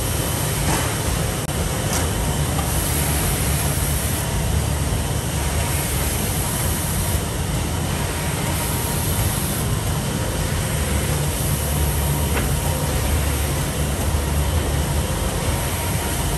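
Meccanotecnica Multiplex gathering machine running: a steady mechanical rumble and clatter that carries on without a break.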